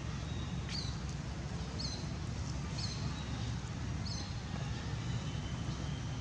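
Steady low outdoor rumble with four short, high chirps, each falling in pitch, about a second apart.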